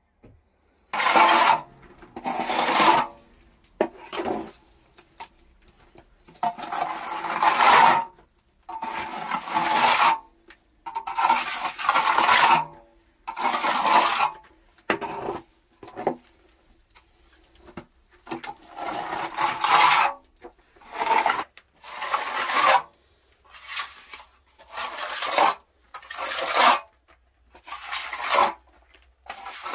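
A hand tool scraping over a rough plastered wall in repeated strokes, each lasting about a second with short pauses between them.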